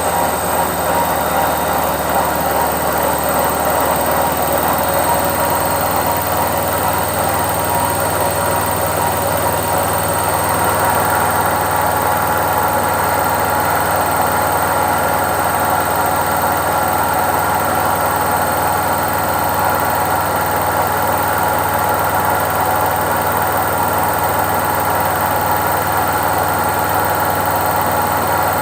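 Indesit IWC71252 washing machine on its spin cycle: the drum spinning with a steady, dense hum. A higher whine joins about ten seconds in.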